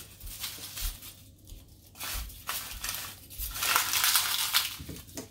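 Garlic cloves being peeled by hand, their dry papery skins crackling and rustling in irregular bursts.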